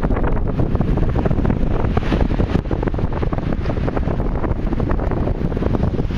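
Wind buffeting the camera microphone: a loud, steady rumble with constant fluttering.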